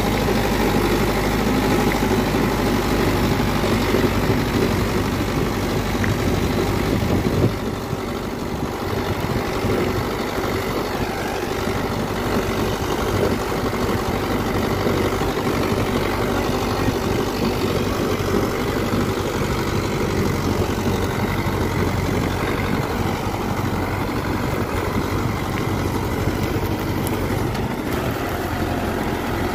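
Mahindra Yuvo 575 DI tractor's four-cylinder diesel engine running steadily under load as it pulls a tine cultivator through dry soil.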